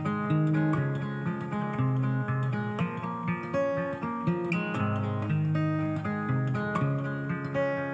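Background music led by acoustic guitar, picked and strummed over held bass notes.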